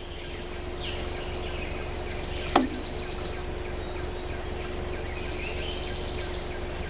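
Steady forest ambience: insects droning high and constant over a low rumble, with one short sharp click about two and a half seconds in.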